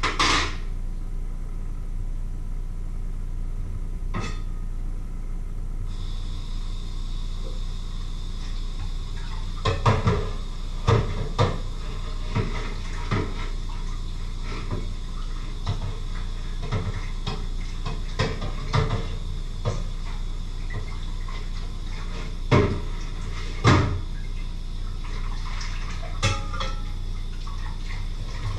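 Washing up at a stainless-steel kitchen sink: the tap runs from about six seconds in, under repeated clinks and knocks of dishes and pots, the loudest two close together near the end.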